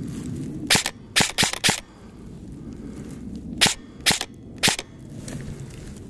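Airsoft rifle firing single shots: seven sharp cracks, a quick group of four about a second in, then three more about half a second apart.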